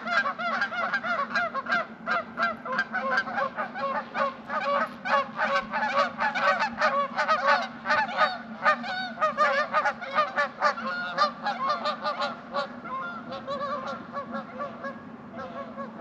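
A flock of geese honking, many short calls overlapping one after another, thinning out toward the end.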